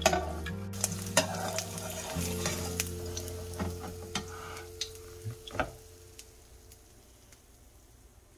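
Fried egg sizzling in a frying pan while a metal slotted spatula scrapes under it and clicks against the pan several times, lifting the egg out. Soft background music fades out near the end.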